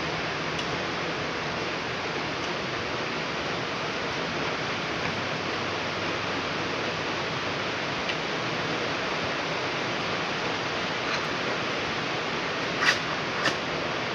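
Heavy rain falling, a steady even hiss. Two short sharp clicks come near the end.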